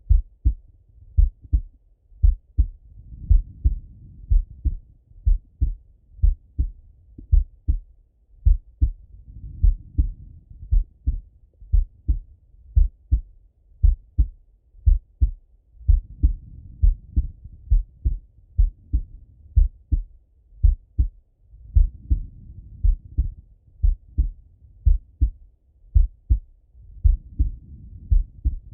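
A relaxed male heartbeat heard through a Littmann stethoscope: steady, evenly repeating beats. A soft breath sound swells under the beats about every six seconds.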